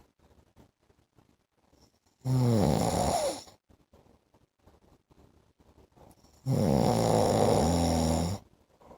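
A man snoring: a short snore about two seconds in and a longer one about six and a half seconds in, quiet in between.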